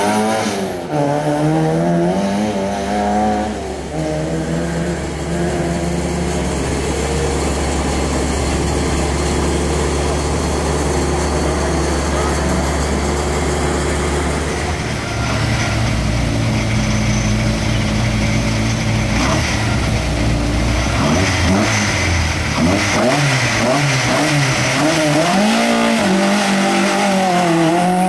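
Rally car engines revved hard: the Citroën Saxo rally car accelerates away through its gears, its engine fades into the distance, and about two-thirds of the way in another rally car's engine comes closer, rising and falling in pitch through its gear changes.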